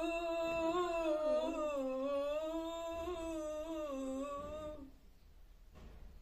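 A woman humming a slow, wavering melody in long held notes, stopping about five seconds in.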